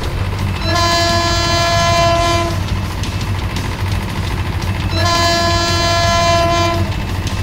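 Train horn sounding two long blasts, each about two seconds, over the steady low rumble of a running train; a dubbed sound effect for the wooden model train.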